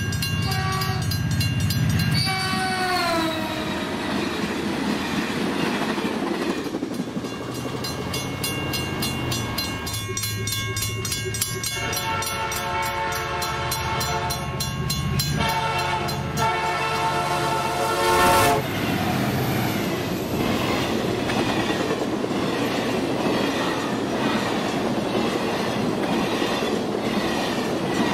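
Train horn blowing as a locomotive passes, its chord dropping in pitch as it goes by, then two more long horn blasts over the train's rumble. Near the end, the wheels clatter in a steady rhythm over the rail joints as the cars roll past.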